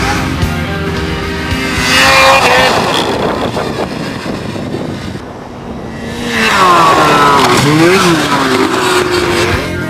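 Snowmobile engine revving up and down as the sled is ridden hard through snow, in two loud passes: one about two seconds in and a longer one from about six and a half seconds. Rock music plays underneath.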